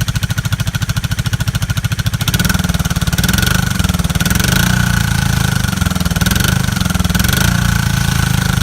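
1977 Yamaha XS400's air-cooled parallel-twin engine running just after its first start on old, varnished fuel, with an even firing pulse that picks up, faster and louder, about two seconds in. It needs a little work.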